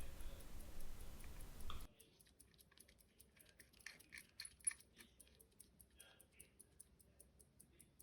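1915 Omega pocket watch movement ticking steadily, about five ticks a second. A few small metallic clicks and taps from screws and tools on the watch come between about a second and a half and four seconds in. A steady hiss cuts off suddenly about two seconds in.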